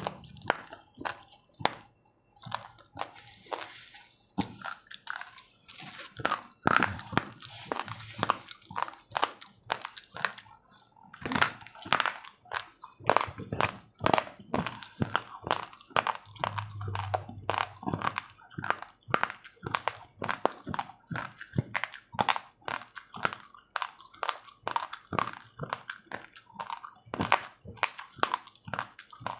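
Raw, uncooked rice grains being chewed: a steady run of sharp crunches, several a second.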